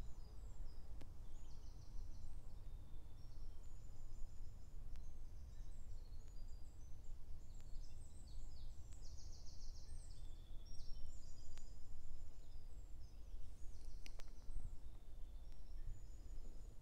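Several songbirds singing at once, a busy run of short chirps and trills, over a steady low rumble.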